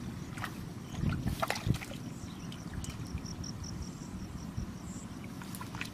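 Hands sloshing and squelching through shallow muddy water, with a few sharper splashes in the first two seconds. A high, rapid chirping runs in the background from about two seconds in to about five.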